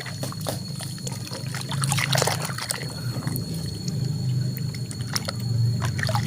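Water pouring and trickling over muddy plastic toy vehicles as they are washed, with scattered small clicks and knocks of the toys being handled, over a low steady hum.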